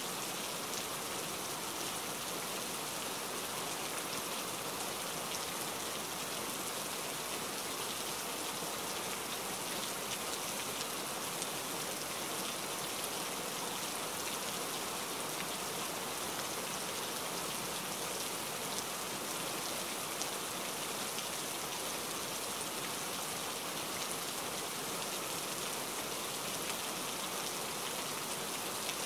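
Steady rain falling, with faint scattered ticks of drops landing close by.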